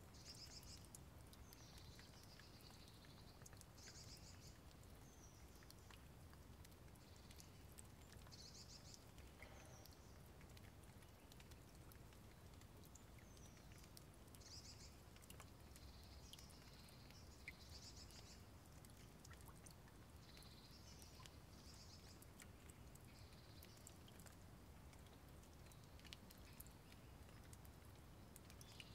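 Faint bird chirps: short high calls repeated every second or two, over a steady low hum with scattered faint ticks.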